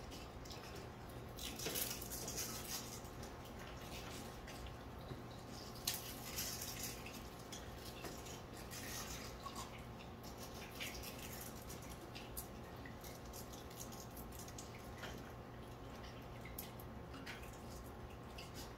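Quiet congregation taking communion: scattered small clicks and brief rustles of hands handling the communion elements, over a steady low hum.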